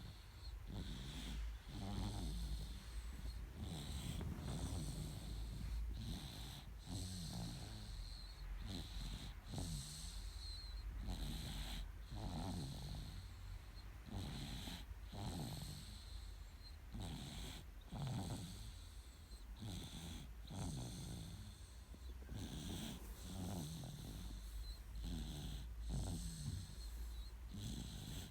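Nine-month-old baby snoring in sleep: a rasping snore with each breath, repeating about every one to two seconds.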